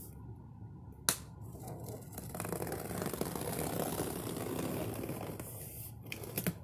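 A cardboard television box being opened and handled: a sharp click about a second in, then a few seconds of rough scraping and rustling of cardboard, and a few small knocks near the end.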